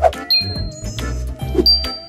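Light, playful children's background music with a few bright plinking and pinging sound effects over it.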